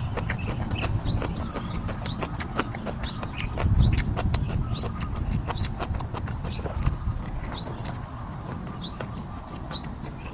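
A bird repeats a short rising chirp about once a second, over close-up wet chewing and mouth clicks as raw shrimp are eaten.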